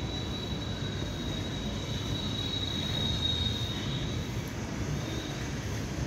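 Steady low outdoor background rumble, with a thin, high, steady whistling tone held for about the first four seconds and a brief one near the end.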